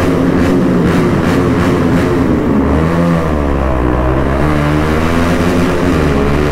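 Bajaj Pulsar RS200 single-cylinder engine with a loud exhaust, ridden hard inside a road tunnel. Its pitch rises and falls as the throttle is opened and eased.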